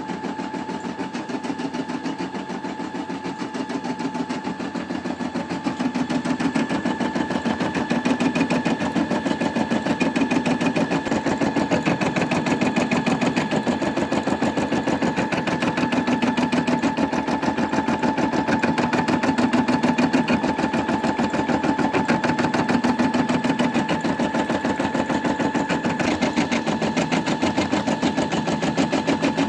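Brother Innov-is M280D embroidery machine stitching, its needle running in a fast even rhythm over a steady motor whine, a little louder from about six seconds in.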